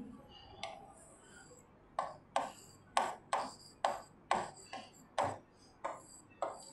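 A pen drawing on a hard writing surface: faint scratching, then from about two seconds in a run of short, sharp taps, about two a second, as quick strokes are drawn.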